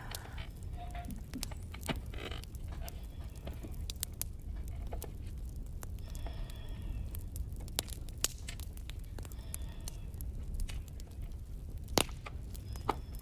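Scattered light clicks and taps of small objects being handled, over a low steady hum, with one louder click about twelve seconds in.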